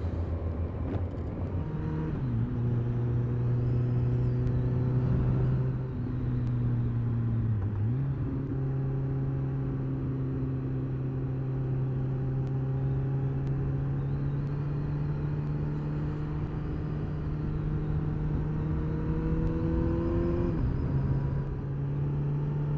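Kawasaki ZZR1400's inline-four engine running on the move, with wind noise. The engine note drops about two seconds in, dips and then climbs around eight seconds in, and drops again near the end.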